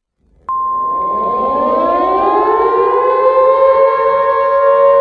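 Civil defense siren winding up, its pitch rising over the first few seconds and then levelling off into a steady wail. A steady high alert tone starts abruptly about half a second in and sounds along with it.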